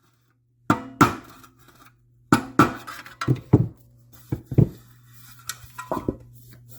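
Light hammer taps on a dolly held behind the car's rear panel trim, knocking out a low spot: about a dozen short, ringing metallic taps in loose groups of two or three.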